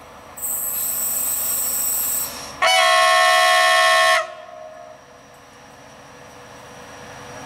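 PESA Gama locomotive sounding its horns as a warning signal: first a shrill high-pitched blast about two seconds long, then after a brief gap a louder chord blast about a second and a half long. The locomotive's running noise grows louder as it approaches near the end.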